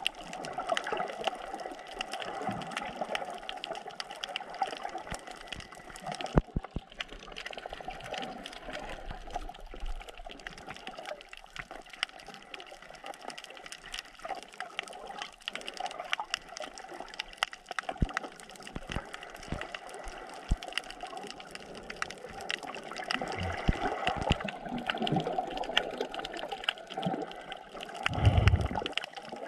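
Underwater water noise picked up by a submerged camera over a coral reef: a steady rush of water with many scattered short clicks, and a louder low thump near the end.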